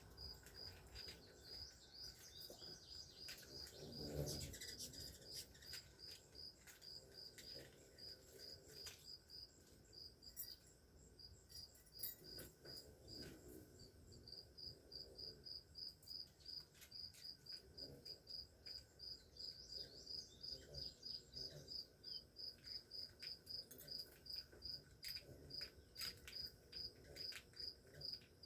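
A cricket chirping steadily, about two to three short high chirps a second, with scattered faint high ticks and a brief low rumble about four seconds in.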